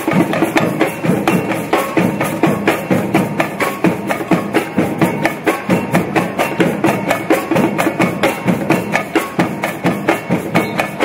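Drum-led percussion music with a fast, even beat of many strikes a second.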